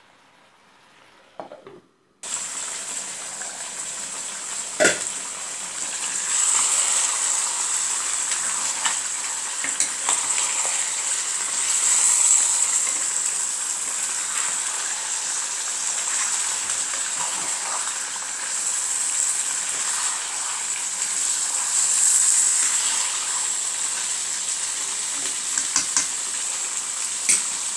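Duck curry in oil and masala sizzling in a pan while it is stirred with a spoon, a steady frying hiss with small scrapes and clicks and one sharp knock about five seconds in. The first two seconds are near silent.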